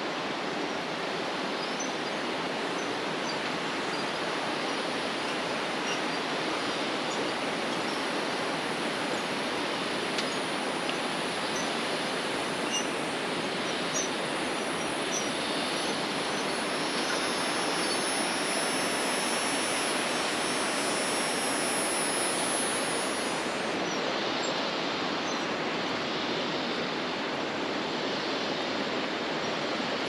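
Steady rush of flowing water. A high, thin buzz joins it about halfway through and cuts off suddenly a little later.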